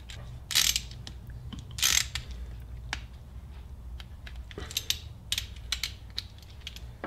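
Hand ratchet with a 5 mm hex bit clicking as it is worked back and forth, tightening the Allen set screw in a brass welding-cable connector onto 1-gauge cable. There are two longer rasps, then a run of quick clicks about two-thirds of the way through.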